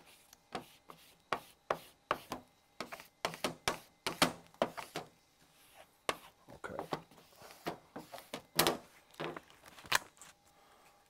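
Plastic squeegee scraping and tapping over vinyl as a sticker is pressed down onto a black Perspex plaque: a run of irregular short scrapes and sharp clicks, stopping near the end.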